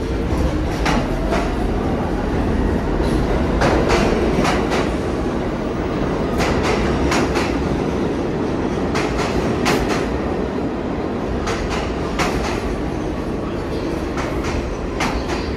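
New York City subway train moving along the station: a steady rumble, with the wheels clacking over rail joints again and again.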